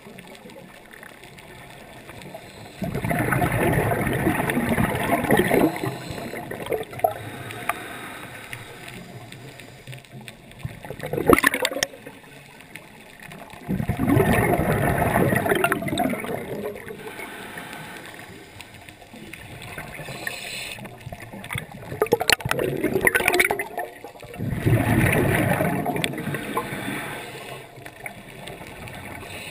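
Underwater scuba breathing: loud bubbling rushes of exhaled air from a regulator, each lasting two to three seconds and coming about every ten seconds, with shorter bubbling bursts between them.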